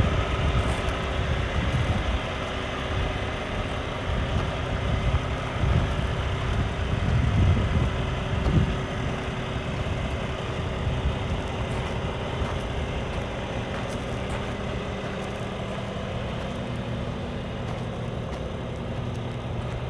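Cummins ISX15 diesel in an International ProStar semi tractor idling steadily, with gusts of wind buffeting the microphone now and then.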